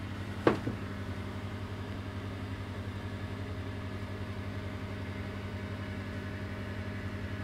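Steady low machinery hum in a motor yacht's engine room, with one short knock about half a second in.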